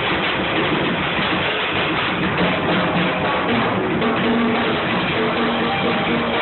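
Loud music with guitar, heard as a dense wash of sound with some held notes coming through about halfway in.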